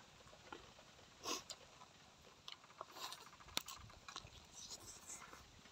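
A person biting and chewing on a chicken foot: faint, scattered mouth clicks and short noises, with one sharper click about three and a half seconds in.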